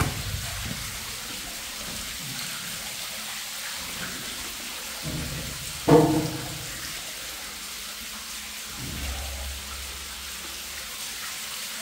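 Steady trickle and splash of water running through wet mine workings, with one brief louder sound about six seconds in.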